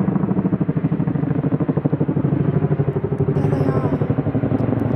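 Military helicopters flying low overhead: loud, rapid, even beating of the rotor blades.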